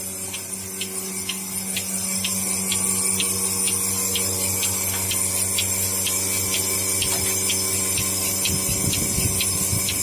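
Portable milking machine running: the electric vacuum pump hums steadily while the pulsator ticks evenly, about three times a second. A low rumble from handling near the end.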